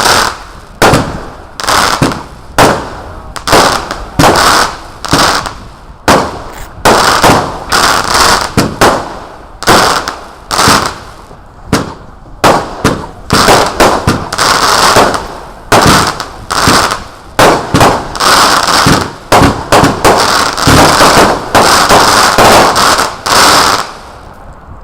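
Consumer firework cake (multi-shot cakebox) firing its shots one after another, each a sharp bang with a short fading tail, about one to two a second. From about halfway the shots come faster and overlap into a near-continuous barrage, which stops near the end.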